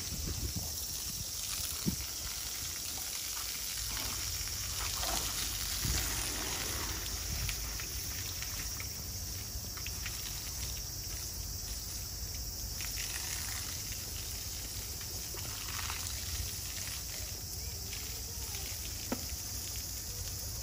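Water from a hose spraying onto an elephant: a steady hiss of spray with splashing.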